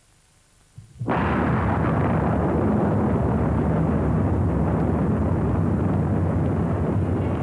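Atomic bomb explosion: a sudden blast about a second in, after near silence, then a deep, sustained rumble that holds steady without fading.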